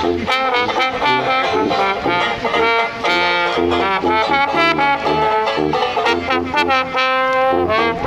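Street trio of trombone, tuba and banjo playing a tune together: trombone melody over tuba bass notes and plucked banjo.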